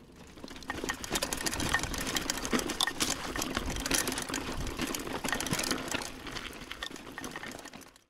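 Mountain bike rattling down a rocky trail: tyres crunching over loose stones with a dense clatter of chain and frame. It swells in during the first second and fades out near the end.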